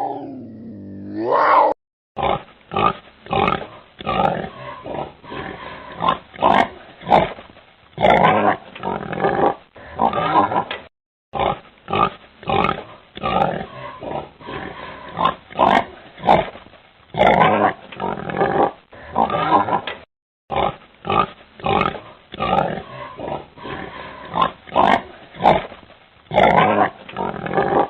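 Pig grunting in a quick, irregular run of short grunts, broken by two brief silences. In the first two seconds, a different animal's pitched, gliding call ends.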